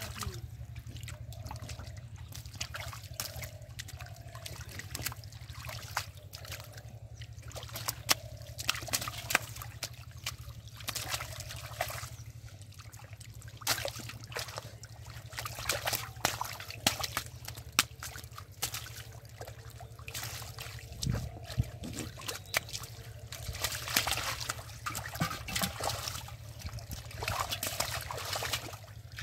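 Hands splashing and sloshing in shallow muddy water, with irregular splashes and drips, as fish are grabbed by hand in the mud. A steady low hum runs underneath.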